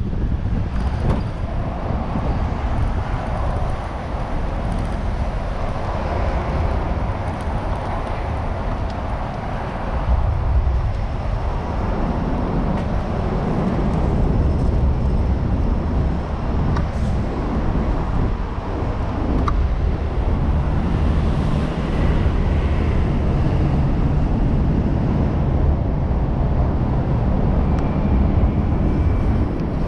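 Strong wind rumbling on an action camera's microphone during a bicycle ride, mixed with the steady noise of road traffic. The low rumble grows heavier from about twelve seconds in.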